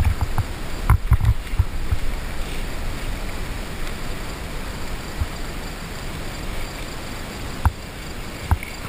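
Water lapping and gurgling against the hull of an inflatable raft, with wind on the microphone and a few light knocks about a second in and again near the end.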